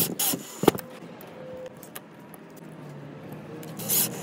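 Cordless drill-driver driving screws through washers into a small wood block, in short bursts at the start and again near the end, with a sharp click just under a second in.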